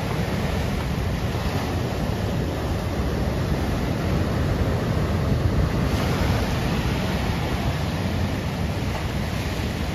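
Ocean surf breaking and washing over a rocky shore, a steady rushing wash that swells slightly around the middle, with wind buffeting the microphone.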